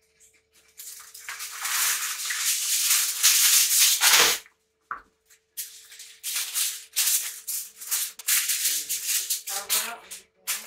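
Aluminium foil being pulled off its roll and crinkled as it is wrapped around a pot lid: a loud crackling rustle lasting about three seconds, then a run of shorter crinkles.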